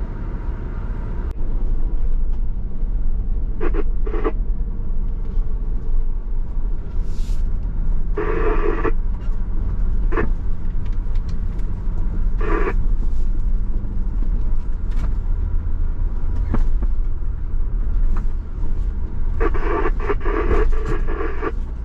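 Ford Bronco driving slowly over a rough dirt trail: the engine runs with a steady low rumble, and scattered knocks and clunks come from the bumps.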